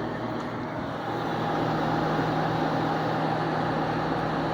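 5,000 BTU Kenmore window air conditioner running steadily on high fan speed: an even rush of air over a constant low hum.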